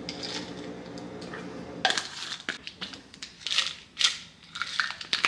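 A steady low hum for about the first two seconds, then a plastic supplement bottle being handled and twisted open: sharp clicks of the cap and rattling of its contents, several times.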